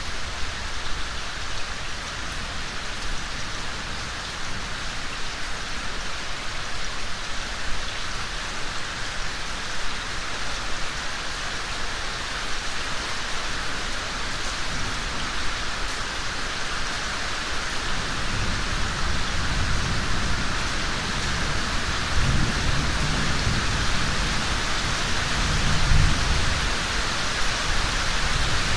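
Steady rain falling, an even hiss throughout. A low rumble builds in the second half and is strongest near the end.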